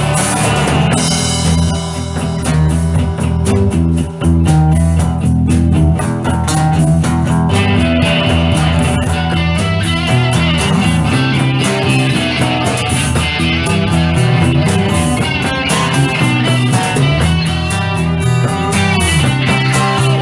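Instrumental break of a rock song: guitar playing over a stepping bass line and drums.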